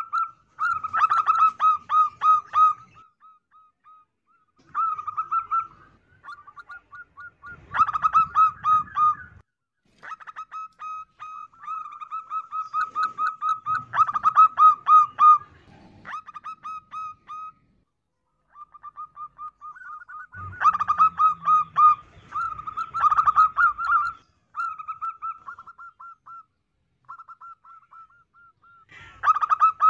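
Zebra dove (perkutut) cooing: phrases of rapid, short staccato notes, repeated again and again with brief pauses between phrases.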